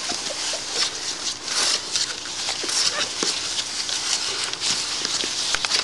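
Very young shih tzu puppies squeaking and whimpering as they play, with many short high squeaks scattered throughout over a constant hiss.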